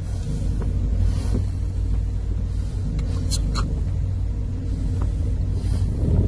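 Steady low rumble of a car engine, with a few light knocks and brief swells of hiss.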